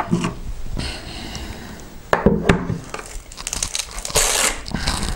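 Hands handling the fabric battery straps and chassis of an RC short-course truck: rustling and light knocks, with a short ripping rasp a little after four seconds in.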